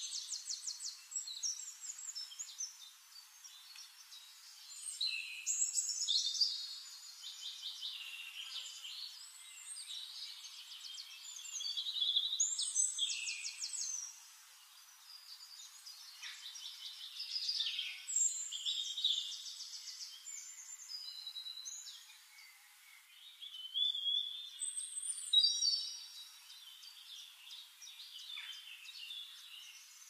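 Several songbirds singing over one another. Rapid trills and chirping phrases come in bursts every few seconds, with quieter stretches between.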